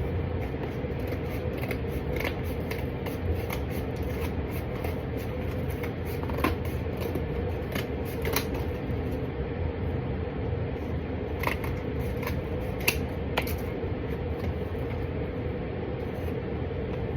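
Scissors cutting through card: scattered sharp snips, a few louder ones in the second half, over a steady background hum.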